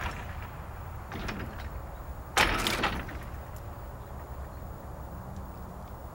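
Worn, little-maintained steel rod linkage of a mechanical railroad interlocking clanking and rattling as it is worked from the tower, with a sharp metallic clank about two and a half seconds in over a low rumble.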